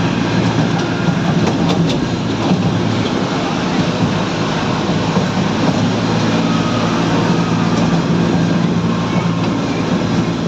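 Park toy train in motion, heard from on board: a steady engine hum with the running noise of the carriages.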